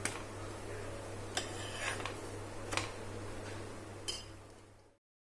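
About five light clinks and taps of a utensil and flatbread against a plate as cooked parathas are set down, over a steady low hum; the sound fades out near the end.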